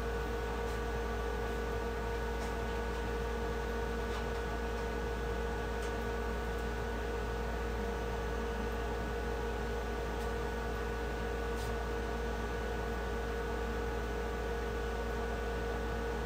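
Steady electrical machine hum with hiss, several fixed tones held unchanging throughout, and a few faint clicks scattered through it.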